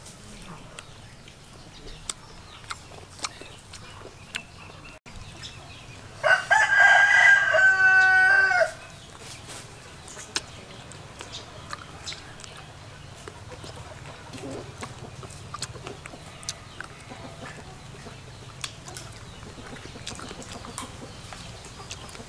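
A rooster crows once, a loud call of about two and a half seconds starting some six seconds in. Faint small clicks of someone eating are heard around it.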